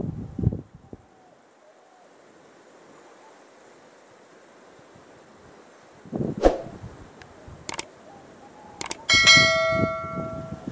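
Subscribe-button sound effect: a couple of sharp mouse clicks, then a bell chime that rings out and slowly fades. Before it, faint open-air background with low wind buffeting on the microphone at the start and again shortly before the clicks.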